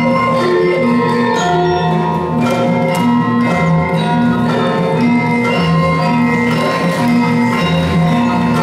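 Gamelan ensemble playing: bronze metallophones and gongs ringing in a steady, repeating pattern of sustained metallic notes.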